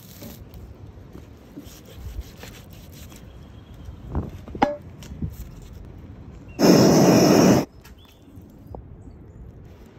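Food-preparation sounds: a few sharp taps, like a knife on a wooden cutting board, about four to five seconds in. Then a loud rushing hiss lasting about a second, which starts and stops abruptly.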